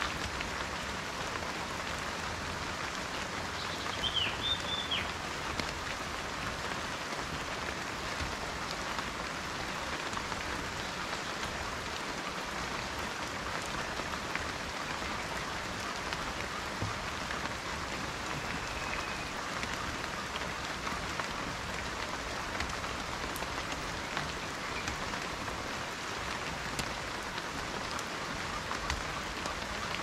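Steady rain falling on dense leafy foliage, an even hiss of drops without a break. A short bird chirp sounds about four seconds in, and a fainter one later.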